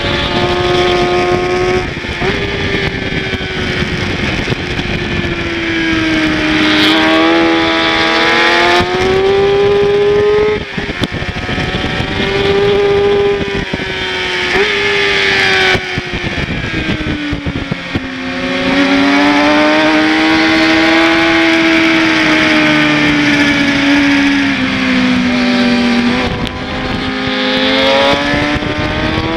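Kawasaki ZX-6R 600 sport bike's inline-four engine through a slip-on exhaust, heard from onboard at track speed. The revs climb and fall repeatedly through the corners, with brief dips at gear changes. Wind rushes over the bike throughout.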